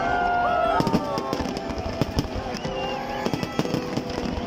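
Fireworks display going off: a dense run of bangs and crackles from bursting shells, one after another, with music playing underneath.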